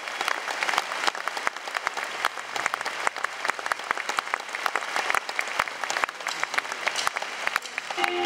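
Concert audience applauding: a dense, steady patter of many hands clapping. Near the end a band starts to play.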